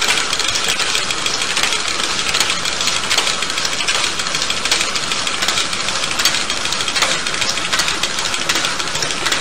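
Lego domino-laying machine running: its small electric motor and plastic gears give a steady, dense rattle as it drives along setting dominoes down in a line.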